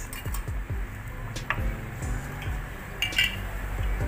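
Metal spatula clinking against the wok while stirring a simmering coconut-milk broth: a few separate clinks, the clearest and most ringing one about three seconds in, over a low steady rumble.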